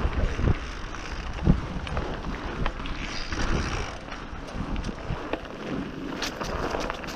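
Mountain bike rolling over a bumpy dirt trail, with wind buffeting the microphone, tyre noise and scattered knocks and rattles from the bike over bumps; the loudest knock comes about a second and a half in.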